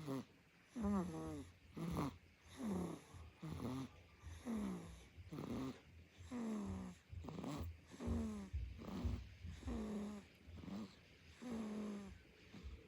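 Rhythmic squeaky snoring, one breath about every three-quarters of a second, each with a whistling note that falls in pitch.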